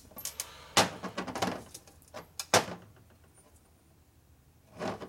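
Steel transmission gears and small parts of a Harley 45 gearbox clinking and knocking as they are handled on a steel workbench. Two sharp metallic knocks stand out, about a second in and again about two and a half seconds in, among lighter clicks.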